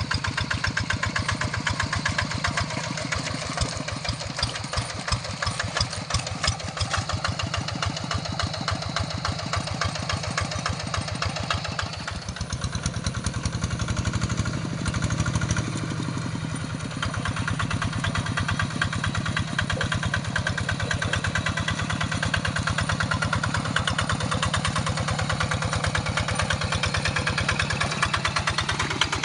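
Large rice-field tractor's engine running steadily while ploughing a paddy, with a fast, even firing beat. About twelve seconds in, its note deepens and grows heavier for a few seconds, then settles back.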